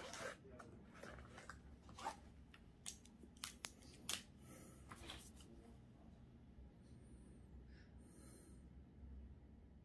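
Sharp clicks and taps of plastic gel pens being handled over a wooden table, the loudest at the start and about four seconds in, then faint scratching of a gel pen colouring on paper.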